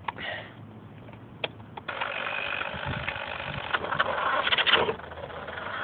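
Remote control car's electric drive motor and gears whirring as it drives, straining under the weight of a speaker system it carries. A sharp click comes about a second and a half in, and the whir starts shortly after, building up and easing near the end.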